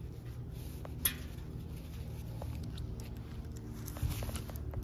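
Hard plastic connector cap pressed into the top of a steel shelf upright, giving one sharp click about a second in, then a few lighter clicks and handling taps near the end, over a steady low rumble.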